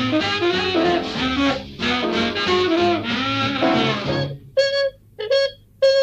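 Background music. About four seconds in, the full band drops away, leaving short separate notes with gaps between them.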